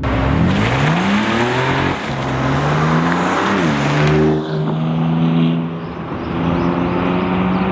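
BMW M2 Competition's 3.0-litre twin-turbo inline-six engine and exhaust accelerating hard past: the revs climb and drop back at each upshift. From about halfway through the engine note settles to a steadier drone.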